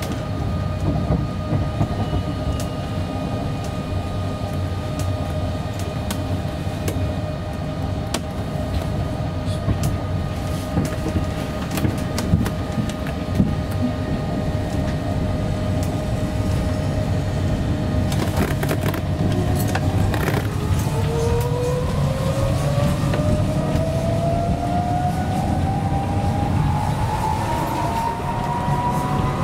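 Cabin noise inside a Heathrow ULTra pod, a battery-electric personal rapid transit car: a steady running rumble with scattered knocks and rattles, under a steady electric whine. About two-thirds of the way through, the steady whine drops away and a new whine rises steadily in pitch as the pod picks up speed.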